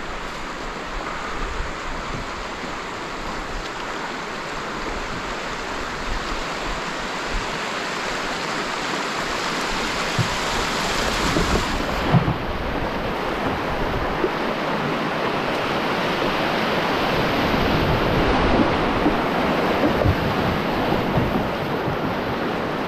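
Rushing whitewater of a river rapid, growing steadily louder as the boat runs into it, with heavy rain falling on the water. A few brief low knocks stand out, the loudest about twelve seconds in.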